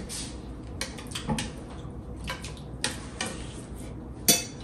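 Spoons clinking and scraping against ceramic plates and serving bowls while people eat and serve themselves, a run of irregular light clinks with one sharper, louder clink near the end.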